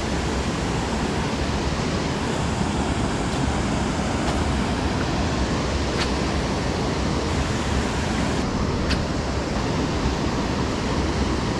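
Steady rush of river water spilling over a low weir, an even, unbroken noise, with a few faint clicks partway through.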